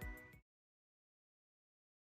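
The tail of an electronic background music track, which fades and cuts off about half a second in, then total digital silence.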